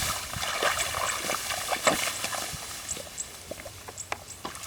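Irregular small splashes and wet clicks of hands or feet working in shallow muddy water, over a steady background hiss, with a few faint short high chirps.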